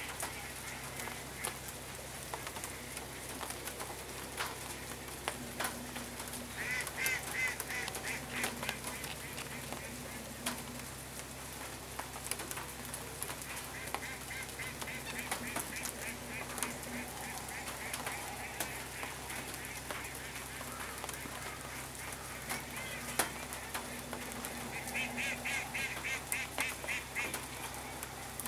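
Waterfowl calling in three runs of quick repeated notes: about seven seconds in, again in the middle, and near the end. Faint scattered ticks sound underneath.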